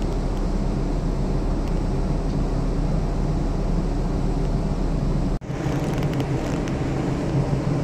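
Steady low hum of a ship's machinery, without pauses. It cuts out for an instant about five seconds in, then carries on with a slightly different tone.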